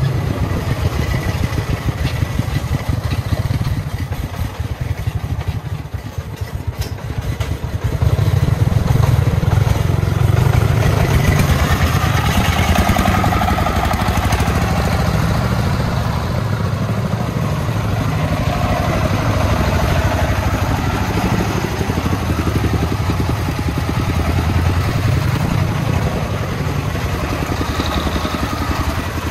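Engine of a homemade công nông truck, a single-cylinder diesel, running with a rapid steady chugging. It eases off about five seconds in, then runs louder again from about eight seconds.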